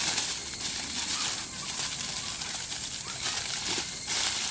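Aluminium foil crinkling and rustling irregularly as it is folded by hand around a piece of melon.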